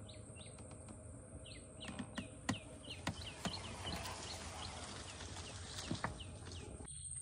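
Birds chirping in mangrove forest: a run of short, falling calls, several a second, busiest in the middle. Scattered light clicks and knocks sound through it, and a steady high hiss runs underneath.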